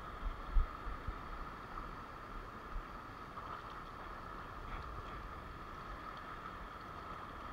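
Steady wash of small sea waves over a rocky shoreline, mixed with wind, with a few dull knocks in the first second or so.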